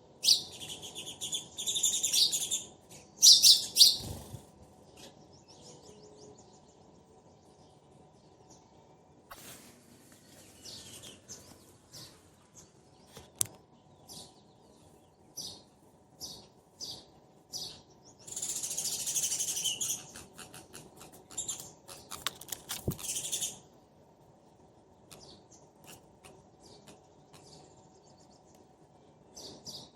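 Sparrows chirping back and forth in quick, dense bursts of high chirps, loudest in the first few seconds and again about two-thirds of the way through, with single chirps in between.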